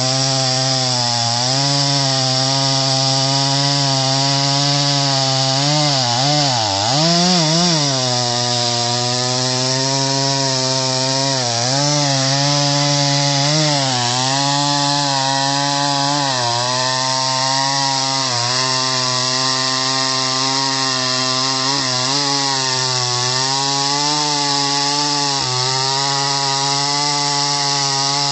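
Solo by AL-KO 652 two-stroke petrol chainsaw running at high revs while cutting through a thick log. The engine pitch wavers as the chain bites, dipping under load several times, most deeply about six to eight seconds in, then picking back up.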